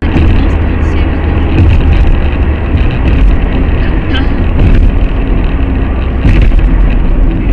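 Car driving at highway speed, heard from inside the cabin: a steady rumble of engine and tyre noise, with a few brief knocks.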